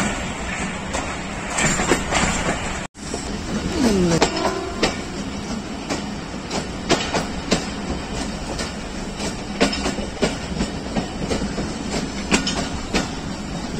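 Passenger train coaches running along the track, heard close from an open coach door: a steady rumble with wheels clicking over rail joints at uneven intervals. A short falling squeal comes about four seconds in.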